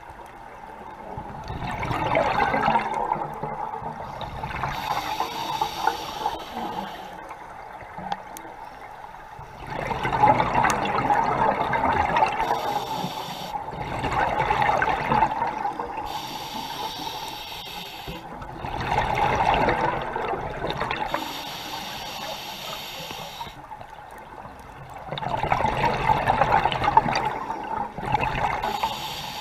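A scuba diver breathing through a regulator underwater: a loud rush of exhaled bubbles about every eight seconds, with a thinner hiss from the regulator between them as breath is drawn in.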